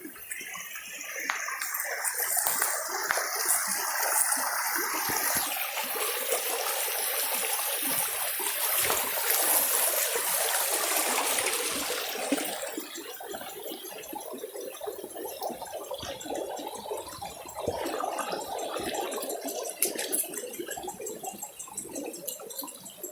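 Running water, louder for the first half and easing off about twelve seconds in.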